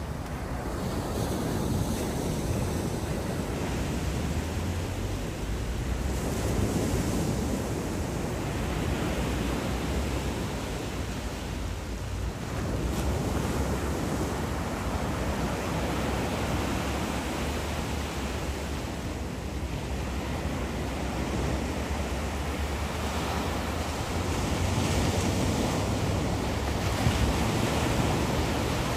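Sea surf breaking and washing on a beach, a steady rush that swells and eases every several seconds. Wind buffets the microphone underneath.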